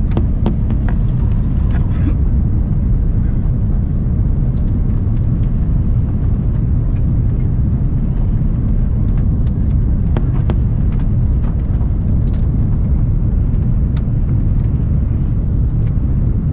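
Steady low rumble of an Airbus airliner heard inside the passenger cabin, with scattered light rattles and clicks from the cabin fittings.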